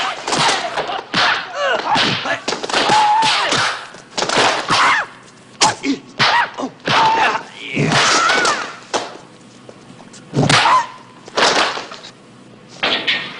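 Martial-arts film fight sound effects: a rapid series of punch and kick impacts, with high-pitched shouted fighting cries and grunts between them.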